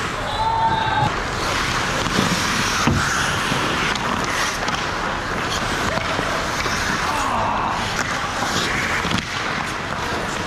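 Ice hockey play: skates scraping and carving on the ice in a steady hiss, broken by a few sharp clacks of sticks and puck, with a brief shout near the start.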